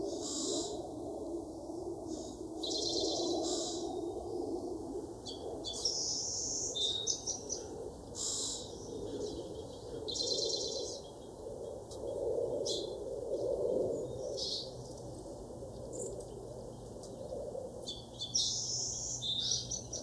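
Backyard songbirds chirping: many short, high chirps and quick trills coming and going throughout, over a steady low background.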